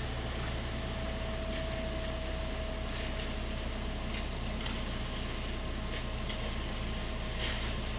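An engine running steadily: a constant low drone with a thin steady whine over it and a few light clicks scattered through.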